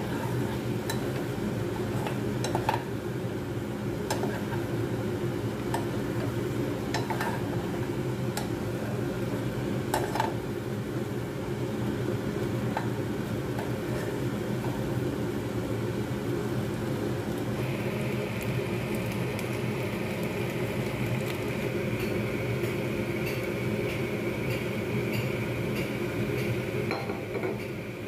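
A spatula scrapes and taps against a non-stick frying pan as pasta and vegetables are stirred, giving scattered sharp clicks over a steady low hum. About two-thirds of the way through, a higher steady whine joins the hum.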